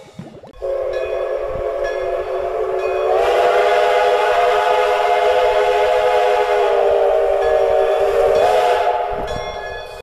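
A steam locomotive's multi-note chime whistle blown in one long, loud blast, starting about half a second in. Its pitch steps up slightly about three seconds in and again near the end, then it tails off.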